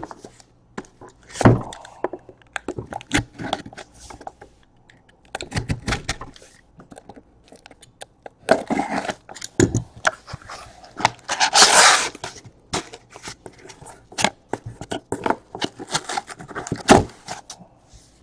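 Cardboard shipping box being handled and opened by hand: scattered knocks, taps and scrapes of cardboard on the table, with a longer, louder tearing rasp about twelve seconds in.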